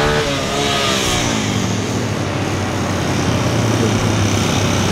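A motor vehicle's engine passing close by, its pitch falling over the first second or so, then a steady low engine drone.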